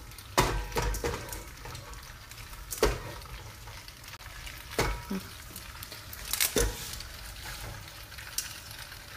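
Ghee and oil sizzling in a pot on a gas stove, with a few sharp knocks of cookware.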